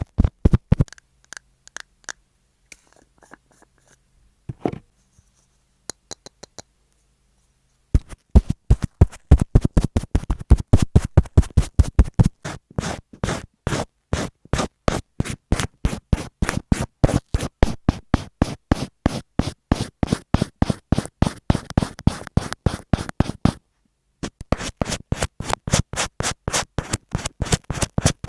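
Rapid, evenly repeated scratching strokes, about five a second. They stop for several seconds near the start, apart from one lone stroke, then run on with a short break near the end.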